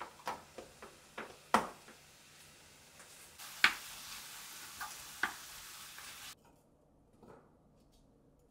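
Several sharp clicks and knocks, then beef with onion and carrot sizzling in a frying pan for about three seconds, with a few loud knocks of a wooden spatula stirring against the pan; the sizzle cuts off suddenly, and a faint tap follows.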